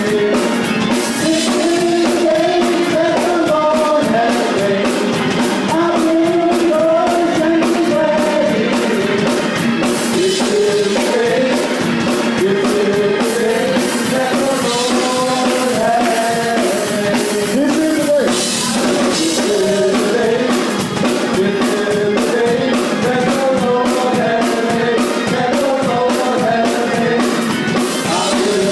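Gospel worship music: voices singing a melody over a band with drums and cymbals keeping a steady beat.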